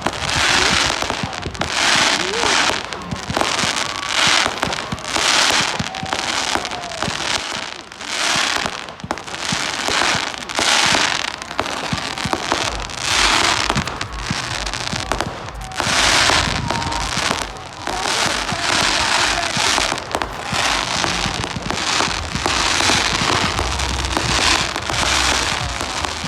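Fireworks going off: a long, continuous run of short bursts, roughly one or two a second.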